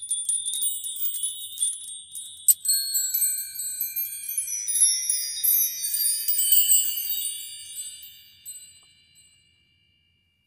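Tinkling chimes from an animated logo sting: many short, high, bell-like tones ringing in quick succession, then thinning out and fading away shortly before the end.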